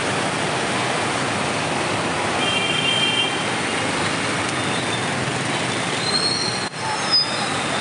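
Steady hiss of street traffic on a wet road, motorbikes and cars passing. A brief high squeal comes about two and a half seconds in, fainter high squeals near the end, and the sound drops out for a moment twice near the end.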